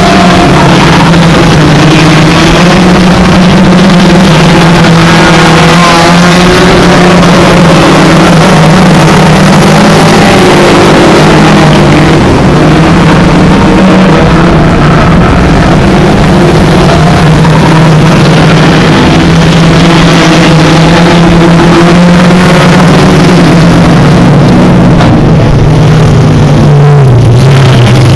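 Engines of a pack of hatchback hot rod race cars running hard together in a race: a loud, continuous drone of overlapping engine notes that waver as the cars lap, with the note dropping lower near the end.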